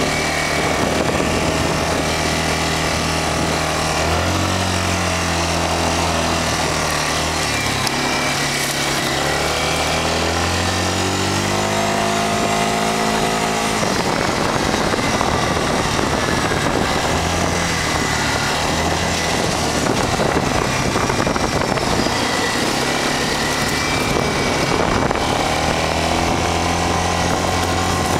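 2007 Yamaha Grizzly 350 4x4 ATV's single-cylinder engine running while riding, its pitch rising and falling with the throttle. A long steady rise in pitch runs up to about halfway through, then the sound turns rougher and noisier for several seconds before the engine note comes back clearly.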